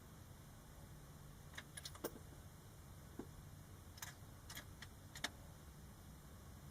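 Faint, scattered small clicks and clinks, about eight of them in the middle few seconds, over a low steady background hum.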